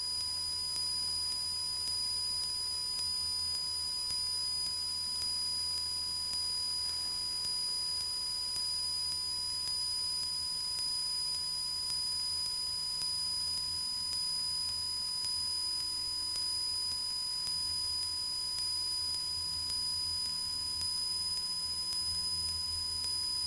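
Steady electronic whine from a Cessna 172's intercom and radio audio feed, several fixed high tones over a low, muffled engine drone, with no talk on the channel.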